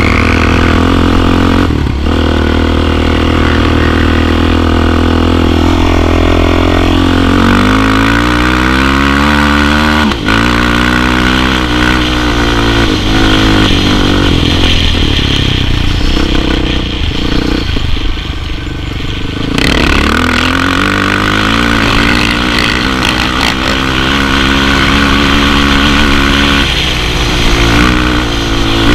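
Suzuki LTZ sport quad's single-cylinder four-stroke engine running hard at high revs. About eight to ten seconds in the revs fall and climb again, and from about sixteen to nineteen seconds the engine eases off before pulling hard again.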